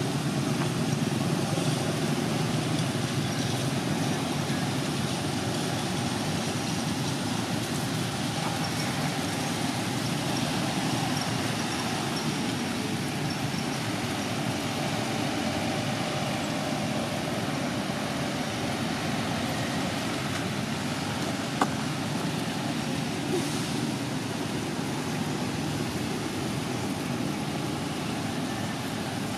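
Steady outdoor background noise with a low rumble, without clear monkey calls, and a single sharp click about two-thirds of the way through.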